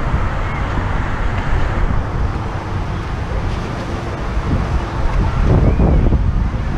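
Wind buffeting the microphone: a loud, steady, low rumble, with faint voices in the background.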